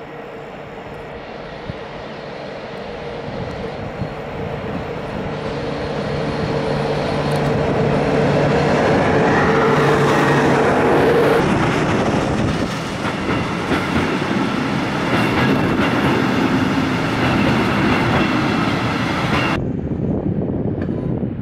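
Electroputere class 40 electric locomotive hauling a freight train past at close range. Its steady hum grows louder as it comes in and stops once the locomotive has gone by, and then the wagons' wheels rumble and clickety-clack over the rail joints. The sound drops off suddenly near the end.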